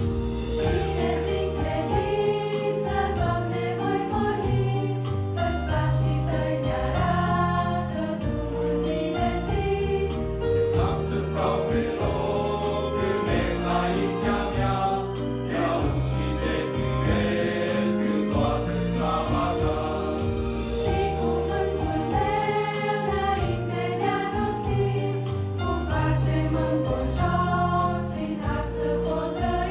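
Mixed church choir of women's and men's voices singing a hymn in Romanian, in sustained parts.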